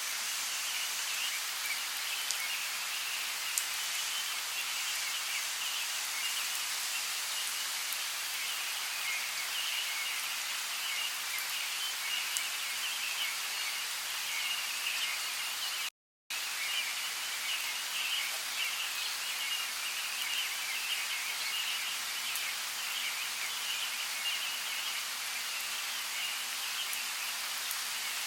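Steady rain falling in a rainforest: an even, dense hiss with scattered faint drop ticks. The sound cuts out completely for about half a second a little past halfway, then resumes unchanged.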